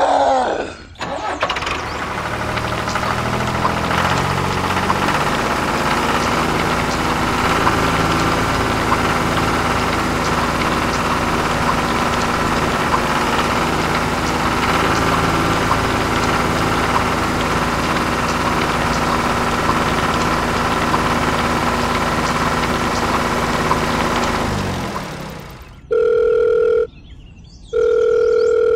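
Dubbed tractor engine sound running for about twenty-four seconds, then cutting out. Near the end a telephone rings twice, two electronic ring tones about a second each.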